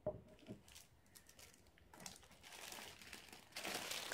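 Two light knocks, then a plastic bag wrapped around a scarf crinkling as it is handled, building from about two seconds in and getting louder near the end.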